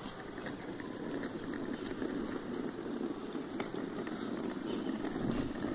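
Small wheels of a trolley school bag rolling over a concrete road: a steady rolling rumble that grows a little louder after the first second, with scattered light clicks.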